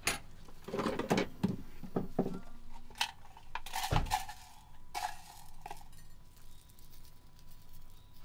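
Kitchen utensils clinking and knocking on metal, a string of separate irregular taps and clinks, the loudest about four seconds in.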